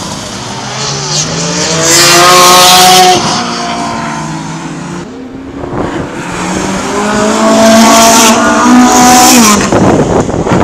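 Lotus Esprit Turbo sports car driven hard on a track at about 190 km/h. Its engine note rises as it approaches and is loudest about two to three seconds in, then drops away as it brakes for a corner. A second loud engine pass builds from about six seconds, peaks around eight to nine seconds and ends with a quick fall in pitch.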